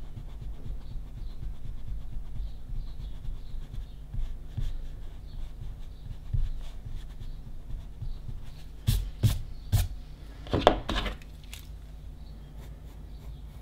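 Rubber eraser scrubbing back and forth on paper, rubbing out pencil guide lines, in short irregular strokes. A few sharp knocks and taps come in the last third, the loudest a little before the end.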